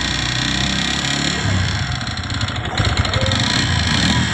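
Motorcycle engine running, revved up a little partway through, with a 'tak tak tak' knocking noise. The knock persists even though the head, piston, block and crank have all been renewed, and the mechanic cannot say what is causing it.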